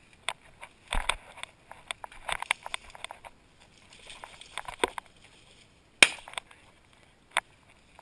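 Footsteps crunching and rustling through dry brush and grass, an irregular run of crackles and snaps. A single loud sharp crack stands out about six seconds in.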